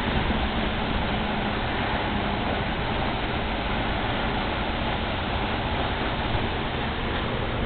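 Steady drone of rooftop packaged air-conditioning units running, a constant rush of fans with a low hum underneath.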